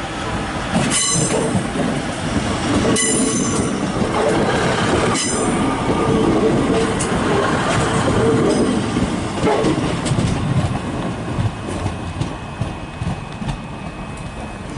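Passenger train running past close along a platform: steady wheel-and-rail rumble with squeal, sharp clanks about one, three and five seconds in, fading over the last few seconds.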